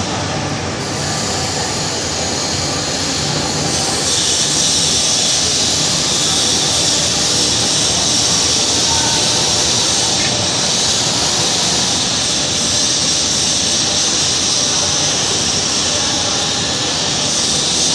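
Twin-shaft paddle dryer running, its paddle shafts turning: a steady, loud machine noise dominated by a high hiss, which grows stronger about four seconds in.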